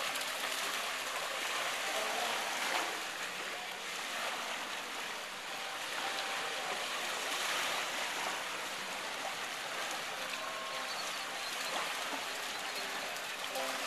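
Small waves washing onto a sandy shore: a steady rush of surf.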